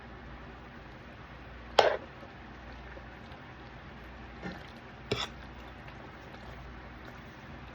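Thick homemade cheese sauce spooned onto macaroni in a cast iron skillet: a few short wet plops, the loudest about two seconds in, two more around five seconds in.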